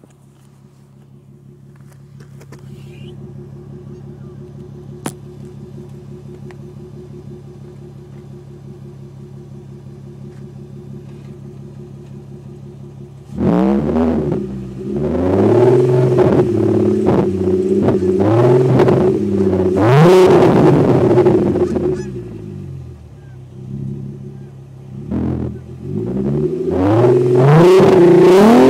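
VW 24-valve VR6 engine running through a Magnaflow exhaust. It idles steadily for about thirteen seconds, then is revved hard several times with the pitch sweeping up and down. It settles briefly and is then revved again near the end.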